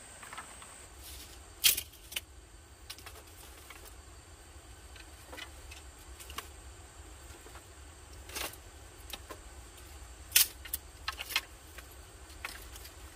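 Dry wooden sticks and poles knocking and clattering against each other as they are laid on a pile: a few sharp knocks spread apart, the loudest about two seconds in and again about ten seconds in, with a short cluster just after the second.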